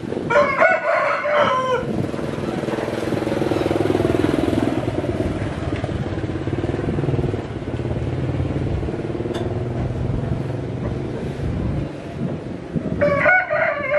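A rooster crowing twice, once just after the start and again near the end, each crow about a second and a half long. A steady engine hum runs underneath between the crows.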